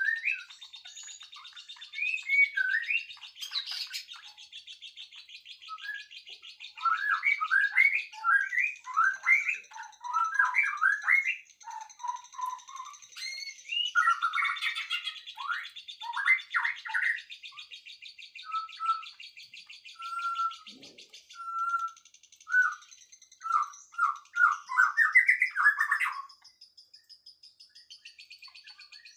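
Songbirds chirping and singing in quick, varied runs of notes, with a steady high-pitched sound beneath them; the chirping stops near the end and the high sound carries on alone.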